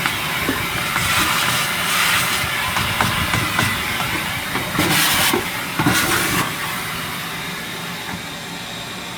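Shop vacuum running, drawing loose baking soda out of a rubber horn ring, with a few brief knocks and rattles of the nozzle about five to six seconds in; the steady noise slowly fades toward the end.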